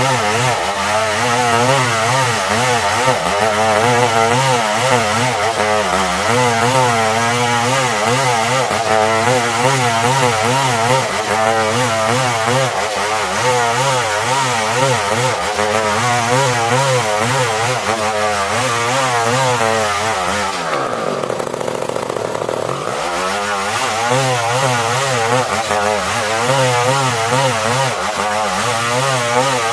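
Stihl 070 two-stroke chainsaw cutting a log into planks, its engine speed wavering under load. About 21 seconds in it drops to idle for a couple of seconds, then revs back up and cuts on.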